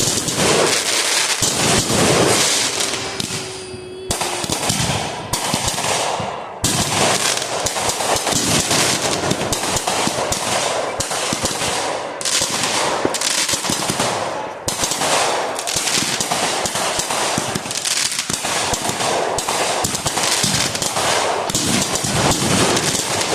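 Fireworks going off: a dense, continuous run of rapid crackling bangs, with short lulls about four and six seconds in.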